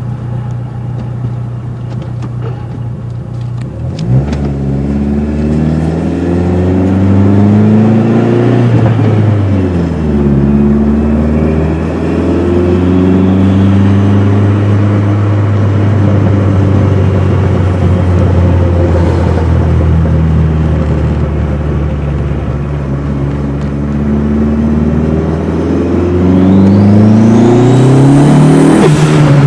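Dodge SRT-4's turbocharged 2.4-litre four-cylinder engine running steadily, then pulling hard about four seconds in, easing back and holding a steady speed for a long stretch. Near the end it pulls again, and a thin high whine rises sharply with the revs.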